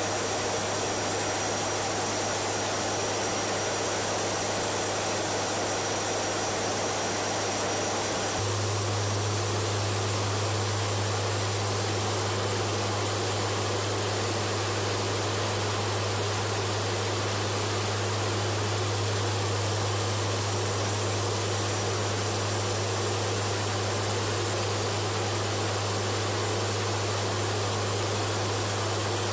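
Steady flight-deck noise of a WC-130J Hercules in flight: the low drone of its four turboprop engines and propellers under a constant hiss of airflow. The low drone steps up louder about eight seconds in and then holds steady.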